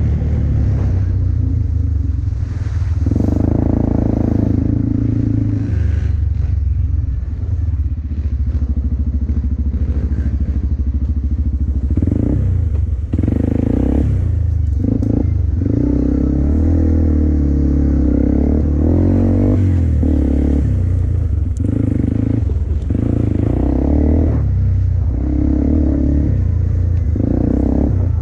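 Off-road vehicle engine running at low speed, the throttle opened in bursts every few seconds, with occasional knocks.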